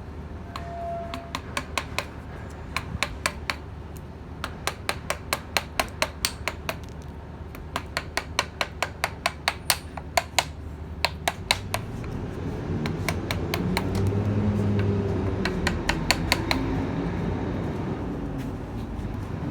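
Mallet tapping a chisel into chestnut wood in quick runs of sharp strikes, about three or four a second, with short pauses between runs. From about two-thirds through, a low engine rumble swells up, louder than the taps, and then fades.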